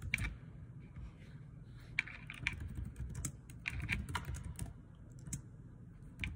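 Irregular light taps and clicks of typing on a device, in small clusters of quick strokes, over a low steady rumble.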